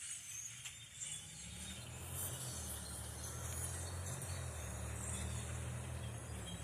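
A large flock of blackbirds chattering with scattered high calls. About a second in, a low, steady vehicle engine rumble comes in under them and becomes the loudest sound.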